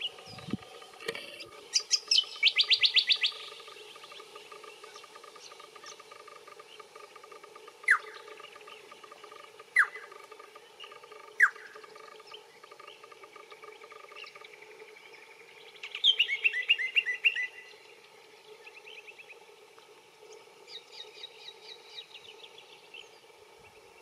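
Little friarbird calling: quick bursts of rapidly repeated notes, about two seconds in, again in the middle and more faintly near the end, with three short single notes falling in pitch between them.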